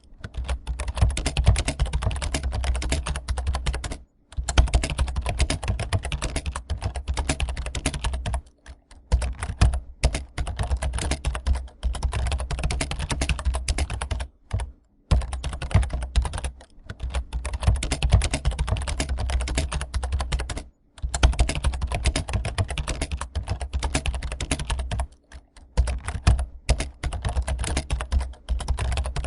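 Computer keyboard typing, rapid and dense, with clicks packed too close to pick out one by one. It stops for about half a second around five times.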